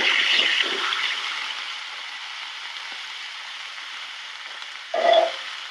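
Steak sizzling over high heat, a steady hiss that is loudest at first and settles lower after about two seconds.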